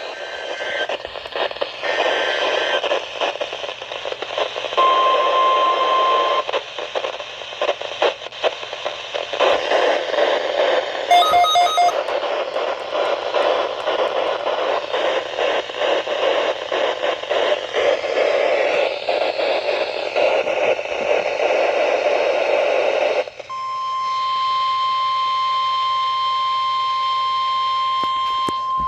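Crackling radio static with a few brief beeps in it. About 23 seconds in, the static cuts off and a steady, single-pitched weather radio alert tone begins, the alarm that announces a warning before the voice message.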